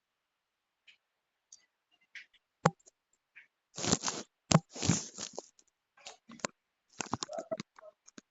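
Irregular crackling, rustling and scraping noises with a few sharp clicks. They are sparse at first and grow busier about halfway through.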